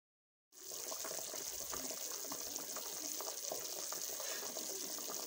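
Pot of beef chunks boiling hard in water: a steady bubbling hiss full of small pops, cutting in suddenly about half a second in. The meat is being boiled through before it is fried.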